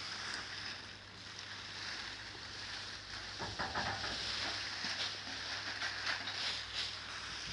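Large plastic sheets rustling and crinkling as they are lifted, pulled and shaken out, busiest in the middle and later part, over a steady low hum.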